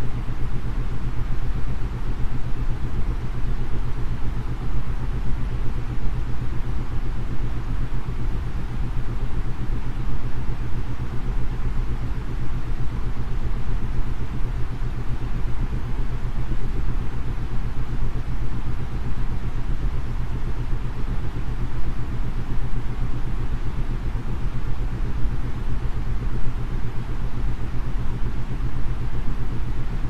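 Steady white noise for sleep, heaviest in the low end, with a low isochronic tone pulsing rapidly underneath. The pulses are meant for brainwave entrainment at about 8 to 9.5 beats a second.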